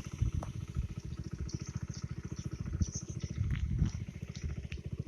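Small motorbike engine running steadily: a low, rapid, even putter of firing pulses, with a few light rattling ticks over it.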